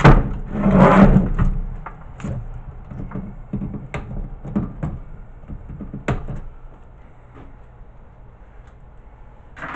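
Side cutters snipping wires and bundles of wire being pulled and rattled off a CRT TV circuit board. A louder clatter of handling about a second in, then scattered sharp clicks and snips that thin out toward the end.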